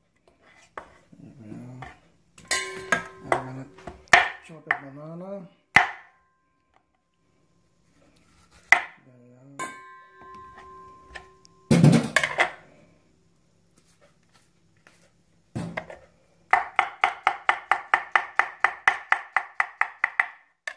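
Kitchen knife striking a wooden cutting board: scattered knocks and taps, then near the end a fast, even run of chops, about five a second, as a banana is sliced.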